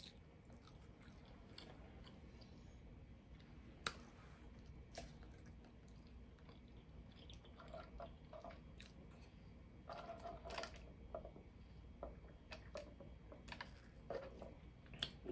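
Faint mouth sounds of sipping a soft drink through a straw from a paper cup, with scattered small clicks and one sharper click about four seconds in.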